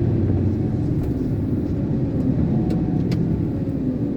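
Diesel engine of an Iveco concrete mixer lorry running steadily, heard from inside the cab, with a few light clicks.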